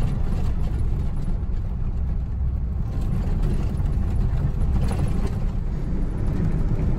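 Car driving on a gravel road, heard from inside the cabin: a steady low rumble of tyres and engine.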